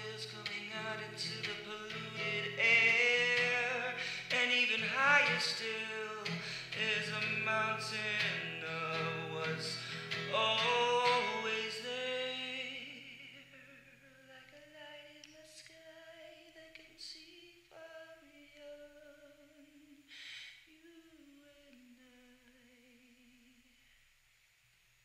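Music: a sung melody with vibrato over sustained low chords, thinning about halfway to a single wavering line that fades out near the end.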